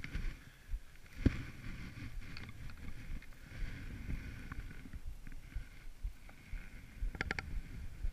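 Skis running through powder snow: a low, uneven rumbling swish with irregular knocks, a sharp knock about a second in and a quick run of clicks near the end.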